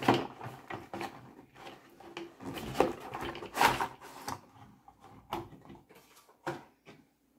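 A cardboard Treasure X toy box being opened and its green plastic tray slid out and handled: irregular scraping, rustling and sharp clicks of packaging, busiest about three to four seconds in.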